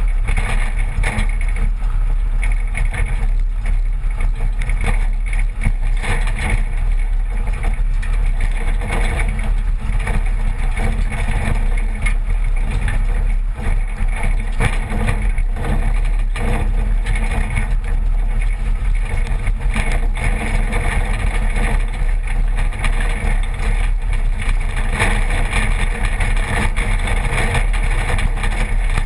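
1986 Toyota pickup with a 22R four-cylinder engine driving over a rough gravel dirt track, heard close to the front wheel: steady engine and tyre noise with frequent knocks and jolts.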